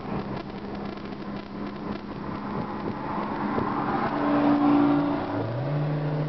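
Car engines and road noise at highway speed, heard inside a Honda Civic's cabin as a twin-turbo Lamborghini Gallardo pulls past alongside. The sound swells about four to five seconds in, and near the end an engine note climbs in pitch as it accelerates.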